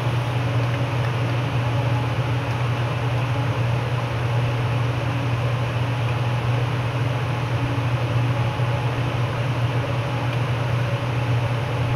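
Steady low hum with an even hiss over it, the constant background noise of the recording.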